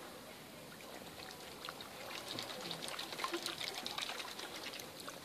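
Water splashing and dripping as mute swan cygnets dabble at the surface with their bills: a patter of small wet ticks that grows busier about two seconds in.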